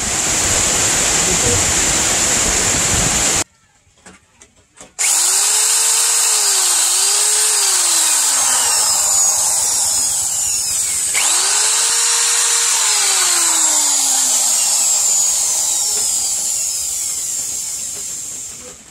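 Corded electric hand drill boring rivet holes through wooden knife-handle scales. The motor's whine rises and falls several times as the speed changes. The drilling stops for about a second and a half early on, then resumes and fades near the end.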